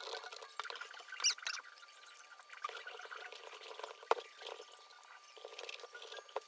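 A pumpkin scoop scraping the wet pulp and seeds from inside a hollowed pumpkin: irregular, wet scraping strokes, with a sharp click about four seconds in.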